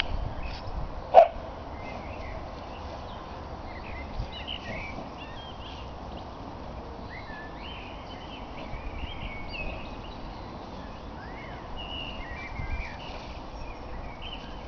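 Songbirds chirping and singing throughout over a low outdoor rumble, with one short sharp sound about a second in.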